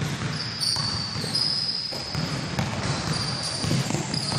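Basketball game sounds in a gym: a basketball bouncing on the court, with players' shoes thudding and squeaking on the floor. The thin high squeaks come and go.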